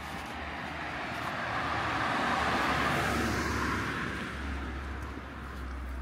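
A car passing by on the road, its tyre and engine noise swelling to a peak about halfway through and then fading away.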